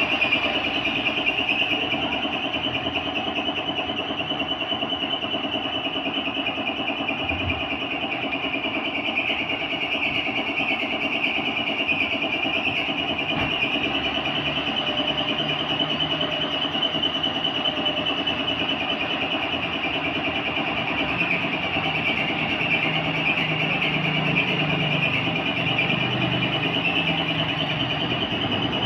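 A motor running steadily and evenly, with a strong hiss over a low hum; it does not change pace.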